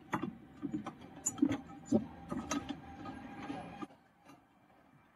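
Irregular clicks and knocks of hands working on a washing machine's motor and drive belt, over a faint steady hum that cuts off suddenly about four seconds in.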